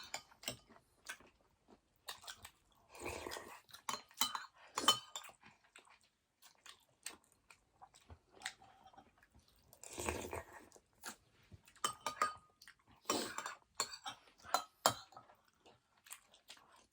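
Close-up mouth sounds of eating: chewing and crunching food, with a spoon clicking and clinking against a bowl many times.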